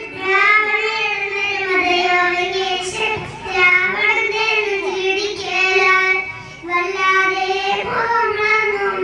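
A child singing long held notes with a slight waver, breaking briefly twice for breath. The voice is affected by a cough.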